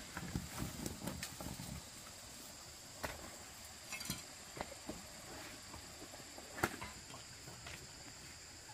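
Cassava roots tumbling out of a woven basket and knocking together on a concrete floor, a run of dull thuds in the first two seconds, then a few separate sharp knocks as single roots are moved. A steady high insect drone throughout.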